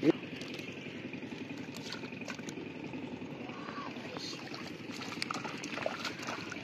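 Hands splashing and sloshing in shallow muddy water while grabbing a fish, over a steady low rumble. A sharp thump right at the start is the loudest sound.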